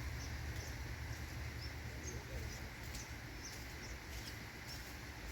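Small birds chirping: short high notes about twice a second, over a low steady rumble.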